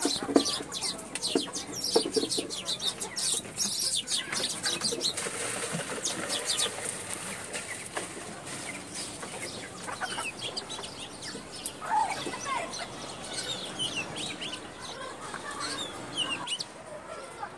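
Background bird calls, clucking and chirping on and off, busiest and loudest in the first few seconds.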